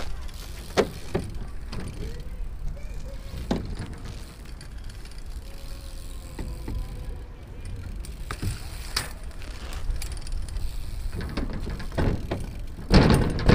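BMX bike rolling over paving stones, with a steady rumble from the tyres and wind, and scattered clicks and rattles from the bike. Near the end comes a loud clatter as the bike hits a skatepark ramp.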